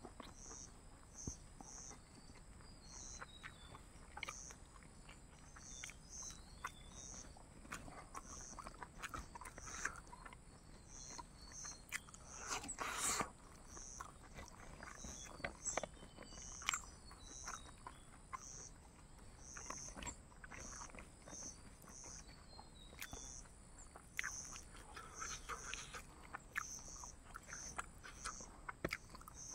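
Chewing and mouth sounds of a man eating pork and rice by hand, soft wet clicks and smacks with a stronger one about halfway through. An insect chirps steadily in the background, about twice a second.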